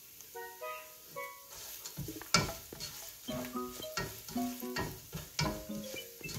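A plastic spatula stirring and scraping sliced onions and whole spices frying in oil in a non-stick pan, with the oil sizzling. The onions are browning. Quick irregular scraping strokes start about a second and a half in, with one sharp clack soon after. A light background melody of short notes plays throughout.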